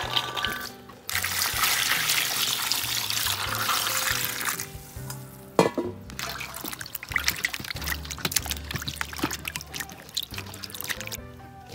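Liquid poured in a steady stream for about three and a half seconds, then a sharp knock and a run of light clicks, over background music.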